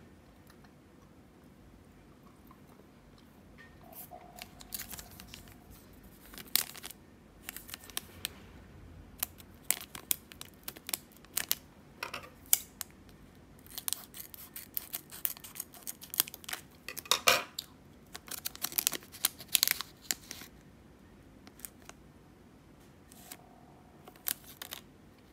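Small foil candy wrapper crinkling and crackling in the hands, with sharp tearing as it is ripped open. The crackles come in quick clusters through most of the stretch, then stop, leaving only a couple of soft rustles near the end.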